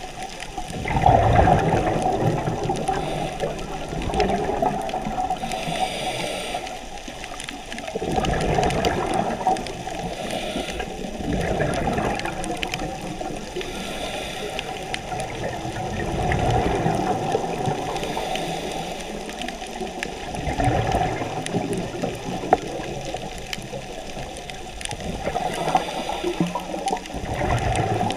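Scuba diver breathing through a regulator underwater: exhaled bubbles rush and gurgle in bursts about every four to five seconds, with a fainter high hiss between breaths.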